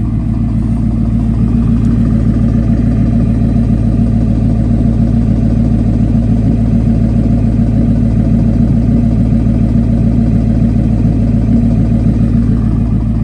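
Ford 5.4-litre Triton V8 idling steadily through a straight-piped exhaust that keeps only the catalytic converters, with the X-pipe cut out.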